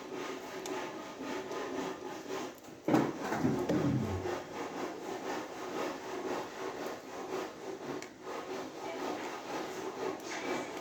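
Plastic parts of a model-kit action figure being handled and adjusted by hand, rubbing and scraping against each other, with a louder scrape about three seconds in.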